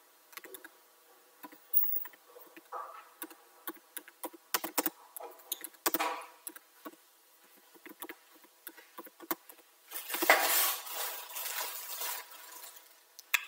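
Computer keyboard typing: scattered, irregular key clicks, with a louder stretch of noise lasting about two seconds near the end.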